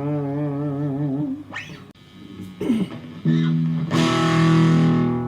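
Electric guitar played through a Fender Studio Valve SVH valve amp: a held note with vibrato ends about a second in, a few short notes and a slide follow, then a chord is struck and left to ring.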